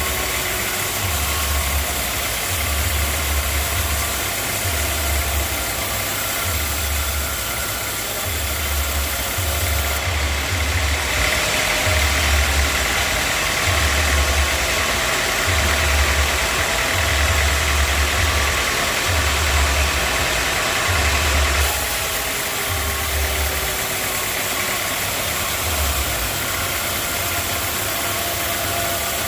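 Sawmill machinery running steadily with a regular low pulsing about once a second. It grows louder and brighter for about ten seconds in the middle, then settles back.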